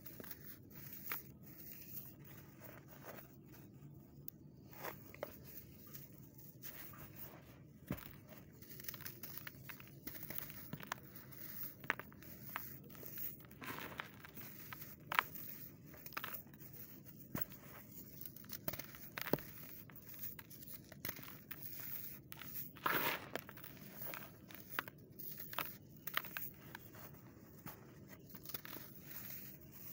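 Hands crushing and crumbling dry clumps of compacted sand in a plastic tub: irregular crunches and crackles, with one longer, louder crunch about three-quarters of the way through.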